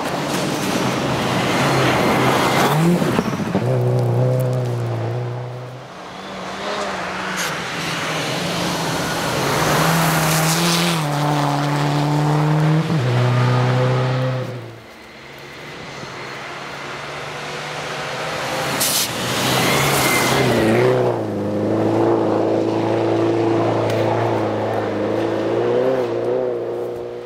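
Group N Subaru Impreza STi rally car with its turbocharged flat-four engine driven hard on gravel, the engine note stepping and dropping through gear changes and lifts. Loud bursts of tyre and gravel noise come as the car passes, three times over.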